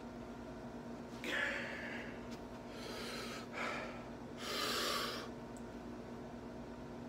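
A man's three forceful, breathy breaths, about a second apart, as he strains to bend a 3/8-inch brass bar by hand.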